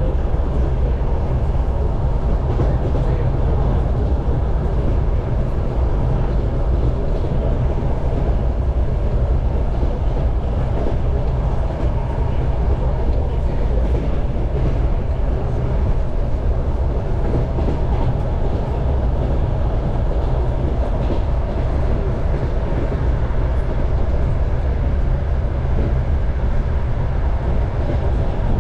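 Passenger train carriage running steadily along the track behind a 2TE10U diesel locomotive, heard from inside: a continuous low rumble with the clatter of the wheels on the rails.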